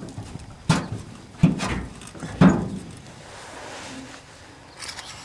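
Three sharp knocks with rubbing and scraping in between as a fuel tank filler neck is worked loose by hand from a 1987 Ford F-150's body, followed by softer rustling.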